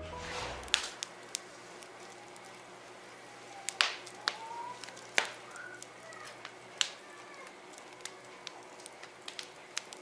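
Firewood burning in a fire pit, crackling with sharp pops at irregular intervals.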